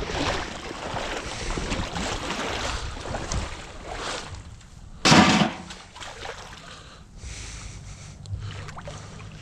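Water sloshing and splashing as a magnet-fishing rope is hauled in hand over hand, dragging the magnet along the creek bottom. A brief, louder noise comes about five seconds in.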